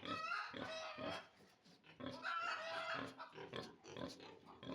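Piglets squealing and grunting as they jostle for the sow's teats while nursing, with one squealing burst at the start and another about two seconds in.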